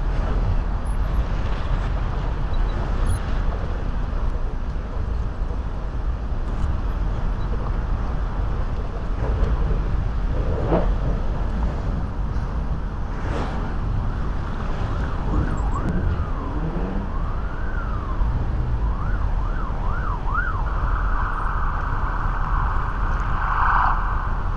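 City street traffic with a steady rumble. About two-thirds of the way in, an emergency vehicle siren starts: a slow wail, then quicker yelps, then a loud continuous blare that stops just before the end.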